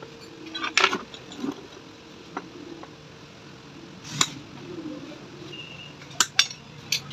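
Lead battery plates and steel pliers clinking and knocking inside an empty plastic battery case: a string of about seven sharp metallic clicks, two of them close together about six seconds in.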